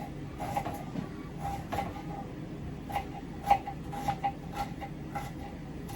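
Kitchen knife chopping onions finely on a cutting board: a run of irregular taps, a few a second, with pauses between.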